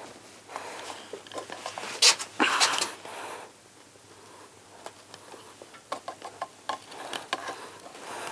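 Plastic sealant cartridge crackling and clicking in the hand as sealant is pressed out of its nozzle around a plastic duct flange, in two spells of irregular clicks, with a couple of louder clacks about two seconds in.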